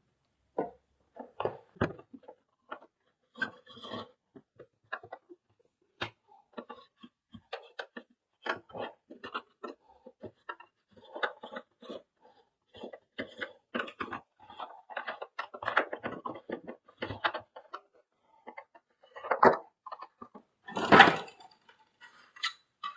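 Hands handling the hard plastic parts of a vacuum cleaner's cord reel assembly: irregular small clicks, taps and light rubbing, with a couple of louder knocks near the end.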